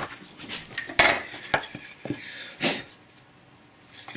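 A few sharp wooden knocks and clatters as the sawn workpiece and tools are handled on the bench hook, the loudest about a second in, quieting toward the end.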